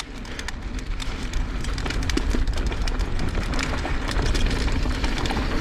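Mountain bike rolling downhill on a dirt trail: wind rushing over the microphone and tyres on the ground, with many small rattles and clicks over bumps. The noise builds as speed picks up.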